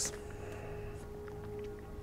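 Quiet background film score: a single held note begins and sustains over a low steady hum.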